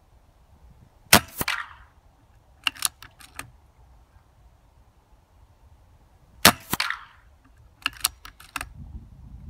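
Two shots from a BSA R10 pre-charged pneumatic air rifle, about five seconds apart, each a sharp crack with a short ring after it. Each shot is followed by a few quick clicks as the action is cycled to load the next pellet.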